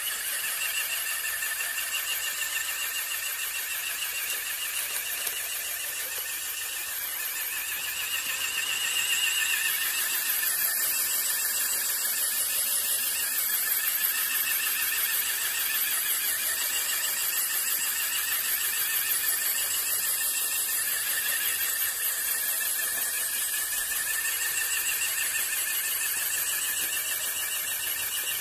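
Electric drive of a remote-controlled model sweeper running, with its rotating broom brushing dust across concrete: a steady high-pitched whine over a hiss, a little louder from about eight seconds in.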